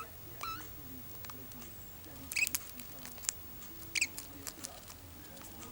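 Budgerigars giving three short, high chirps, with small clicks and scratches between them.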